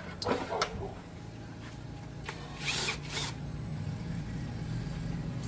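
Workshop tool sounds: a few sharp clicks of metal parts or tools being handled, then a short scraping, hissing noise about two and a half seconds in, over a steady low hum.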